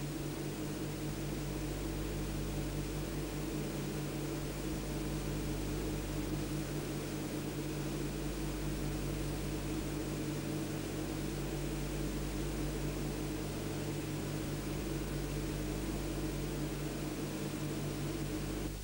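A steady low drone with hiss, in the sound of a worn old film recording, cutting in and out abruptly.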